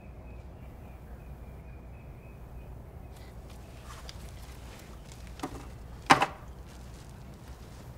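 Quiet room tone with a low steady hum. A soft knock comes about five and a half seconds in, and a louder, brief thump comes just after six seconds, as of someone moving about and handling something.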